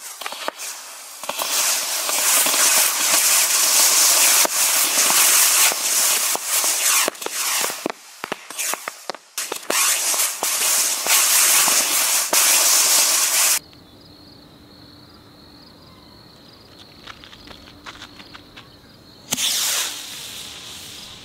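Diwali rockets launching en masse from a bucket: a dense, continuous hissing of many rocket motors, peppered with sharp pops and cracks. About two-thirds through, the sound drops off suddenly to faint crackles under a thin steady high tone, and loud rocket hiss returns near the end.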